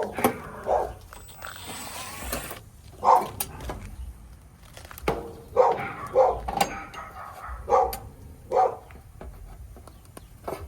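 A dog barking, about seven short single barks at irregular intervals, with a few sharp clicks in between.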